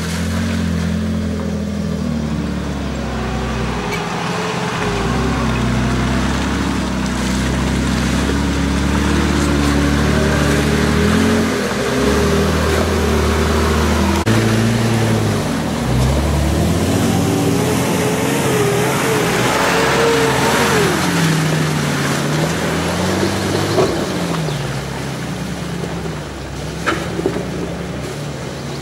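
Off-road 4x4 SUV engines working through mud, revving up and down in pitch as the vehicles crawl over the ruts, with a couple of sharp knocks near the end.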